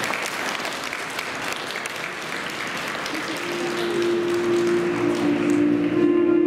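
Audience applauding, a dense patter of clapping that thins out as music comes in with a long held note about halfway through.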